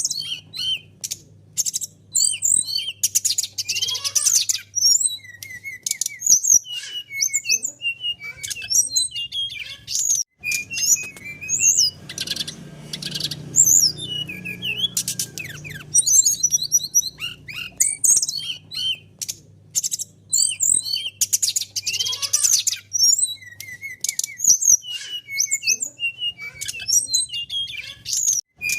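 Brown-chested jungle flycatcher singing: a varied run of short whistles and chirps, broken by fast rattling trills about three seconds in, again from about twelve to fourteen seconds in, and about twenty-two seconds in.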